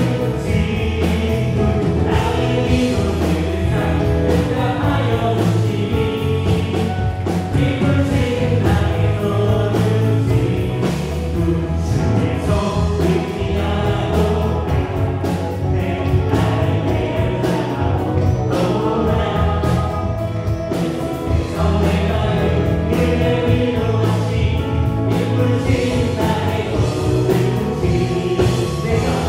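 Live worship band playing a praise song, with electric guitar, bass guitar, drum kit and keyboards under voices singing.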